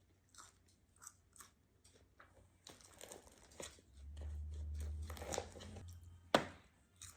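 Close-up chewing and crunching of food, with short crisp mouth clicks, a low rumble for a couple of seconds midway, and one sharp loud click about six seconds in.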